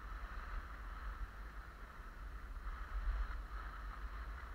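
Wind buffeting the microphone over a steady hiss of skis sliding on snow.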